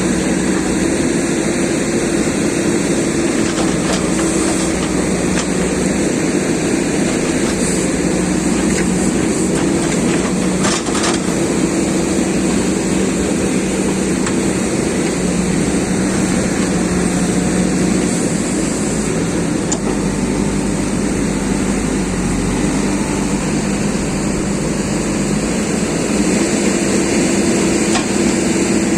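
JCB excavator diesel engine running steadily under hydraulic load, its pitch shifting slightly about halfway through, with a few brief knocks.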